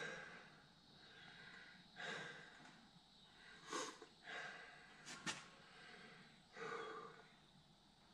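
A man's faint breathing, with short noisy exhales about every two seconds, from exertion after working in a cramped position. Two sharp little clicks come just after five seconds in.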